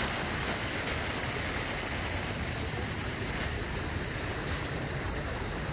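Water from a row of small fountain jets splashing steadily into a stone basin.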